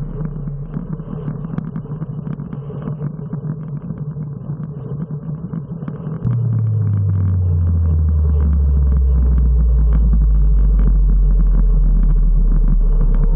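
Wind rumble and road noise from a bicycle riding at about 33 km/h, picked up by a bike-mounted camera. About six seconds in, a loud low hum starts suddenly, slides down in pitch and then holds steady.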